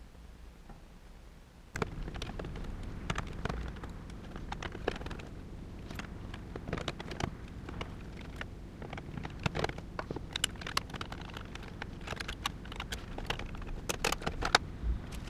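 Irregular clicks, taps and knocks of hard plastic and metal parts being handled, as a desktop computer is worked on and taken apart, starting about two seconds in.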